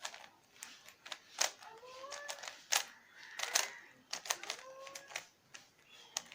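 A 3×3 Rubik's cube being scrambled by hand: its plastic layers turned quickly, giving an irregular run of sharp clicks and clacks.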